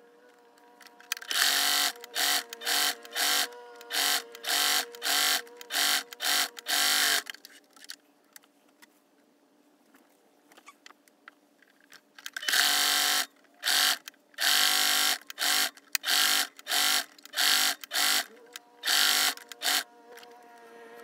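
Domestic Singer sewing machine stitching in short stop-start runs as the foot pedal is pressed and released: a quick string of bursts, a pause of several seconds, then another string of bursts.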